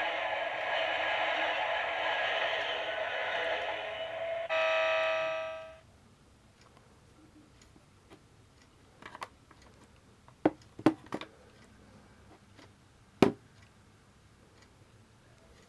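Keikyu 2100 series novelty alarm clock playing its recorded sound through a small speaker. It ends in a held chord that stops about six seconds in. Then the clock ticks faintly, with a few sharp clicks near the end.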